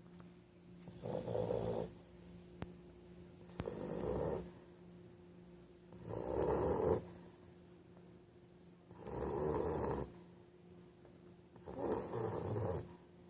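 English bulldog snoring: five loud snores, each about a second long, come every two and a half to three seconds, with quieter stretches between.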